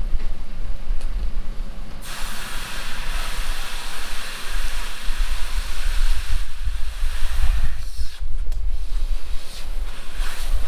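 Water spray hissing in bursts: a long spray starting about two seconds in, then shorter ones near the end, over a steady low rumble of wind on the microphone.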